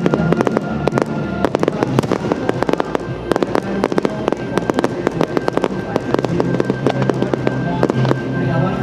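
Fireworks going off in a rapid, dense run of sharp cracks and pops, many each second, over music with a steady bass line.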